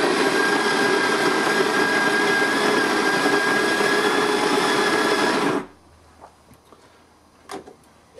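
Bodum Bistro electric burr coffee grinder running, grinding beans on its coarse French press setting: a steady motor whir with a grinding rasp that cuts off suddenly about five and a half seconds in, followed by a few faint clicks.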